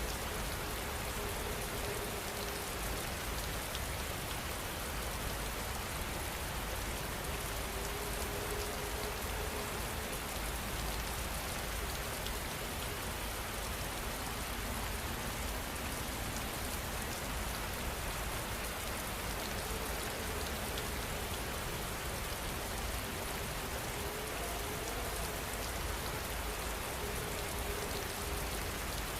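Steady rain falling and pattering on surfaces, an even hiss that does not change.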